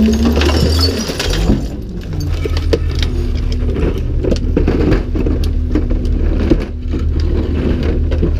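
Garbage truck's engine running with a steady low hum; its pitch rises and falls in the first couple of seconds, then holds steady. From about three seconds in, a plastic wheeled recycling cart rattles and clatters as it is rolled over the pavement to the truck's cart tipper.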